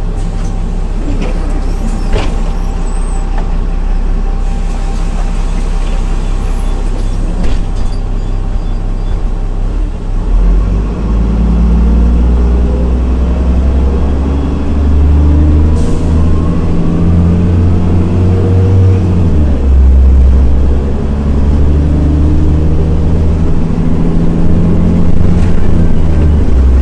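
Solaris Urbino 15 city bus's diesel engine idling, then about ten seconds in pulling away and accelerating: the engine note rises, drops at a gear change, and rises again near the end. A few short clicks come before it moves off.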